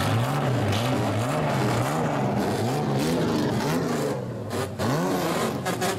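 Straight-piped engine of an old race-styled Japanese car blipped over and over, its pitch rising and falling roughly once or twice a second, with a short drop near the end before another rev.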